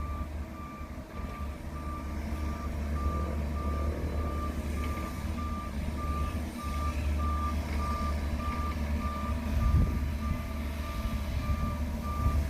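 Backup alarm of a heavy diesel machine reversing: a single high beep repeating at an even pace over a steady low engine rumble.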